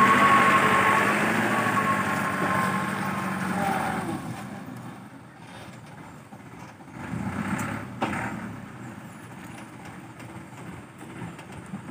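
Mitsubishi PS100 truck's diesel engine idling, loud at first and then fading about four seconds in. The engine sound swells briefly about seven to eight seconds in.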